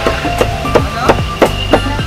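Background music, with a cleaver chopping roast pig (lechon) on a wooden block: several sharp chops, about three a second.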